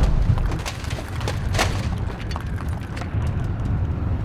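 Sound effect of a building being torn apart: a deep continuous rumble with scattered sharp cracks and splintering debris.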